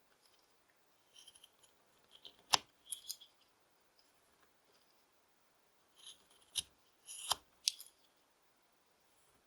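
Carving knife slicing a basswood stick: short scraping cuts in small groups, several ending in a sharp click as the blade snaps through or a chip breaks off, the loudest about two and a half seconds in and three more near the end.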